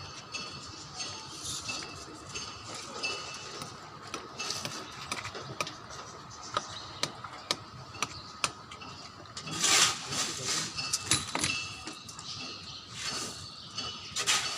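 Construction-site work sounds: scattered sharp knocks and metal clinks, with louder bursts of noise about ten seconds in and again near the end.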